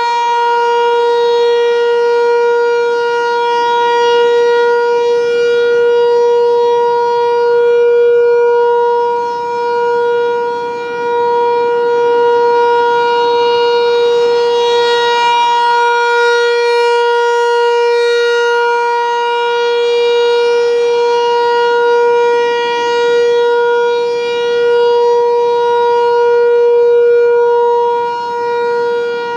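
American Signal T-128 rotating outdoor warning siren sounding a steady tone at full speed, its pitch holding constant. The sound swells and fades every few seconds as the rotating horn sweeps toward and away.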